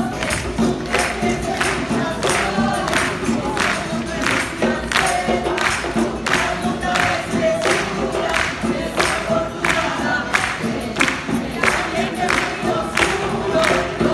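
A group singing in chorus to strummed guitars, with a steady percussion beat about two strokes a second.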